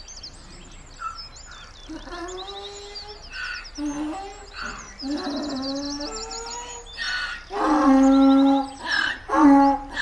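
A donkey braying over birds chirping in the background. The bray starts with quieter wheezy calls about two seconds in and becomes a loud, repeated cycle of alternating high and low calls from about seven seconds in.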